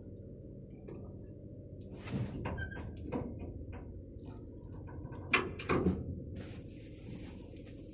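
Several sharp knocks and clatters over a steady low hum, the two loudest close together about five and a half seconds in.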